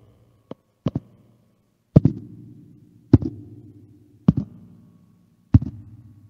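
Slow echoing footsteps: two light taps, then from about two seconds in four heavy steps a little over a second apart, each ringing out with a low echo.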